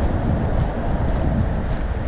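Wind buffeting lavalier microphones clipped to a backpack: a heavy, irregular low rumble. Faint footsteps tick about twice a second underneath.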